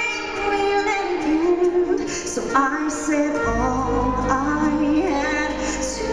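Live concert performance of a pop-country ballad: a female lead vocalist singing sustained, sliding melody lines into a microphone over band accompaniment. A low bass comes in about three and a half seconds in.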